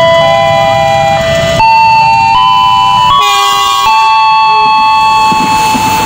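Background music: an electronic melody of held tones that changes pitch every second or so.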